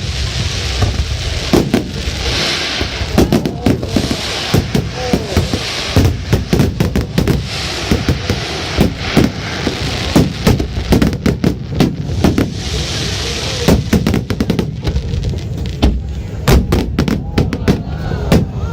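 Fireworks and firecrackers going off in rapid, irregular bangs, several a second, over a steady crackling hiss that swells and fades.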